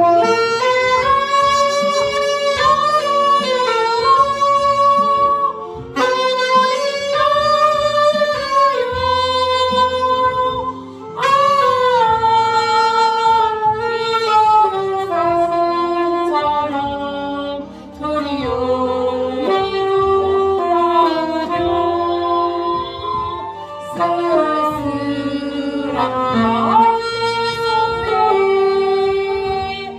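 A saxophone plays a slow, lyrical melody over a backing accompaniment, in phrases with held and sliding notes and short breaths between them.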